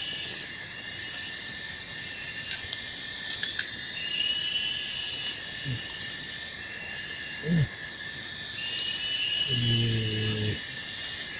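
Steady high-pitched chorus of insects, with a rising call repeating about every three seconds. Over it come a few short low grunts and, about ten seconds in, one held low hum lasting about a second.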